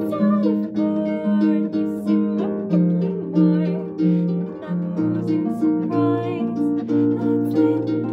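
Concert harp played with the fingers: a steady pattern of plucked bass notes and chords, with a woman singing over it.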